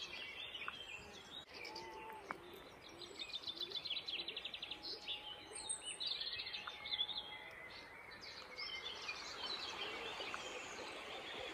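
Several songbirds singing and calling over a faint steady background, with a fast trill of quickly repeated notes from about three to five seconds in.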